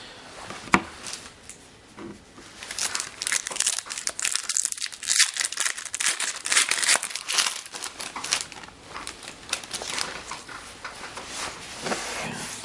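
Foil wrapper of an Upper Deck hockey card pack crinkling and tearing as it is opened and handled, in dense irregular crackles, with one sharp click about a second in.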